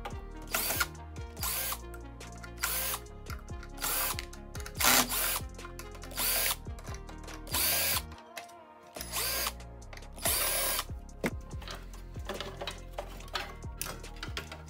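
Cordless drill-driver whirring in about ten short bursts as it backs screws out of a stereo's rear panel.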